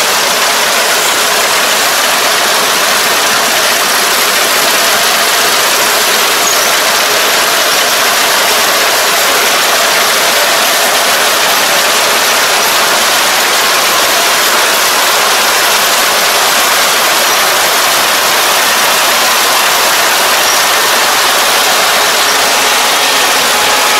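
Kubota ER470 four-row combine harvester running as it cuts and threshes standing rice: a loud, steady mechanical noise.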